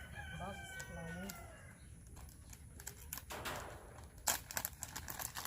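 Brief low voices and a high drawn-out call, then a rustle and a run of sharp clicks and knocks from handling the wire fencing and clips, the loudest about three seconds in.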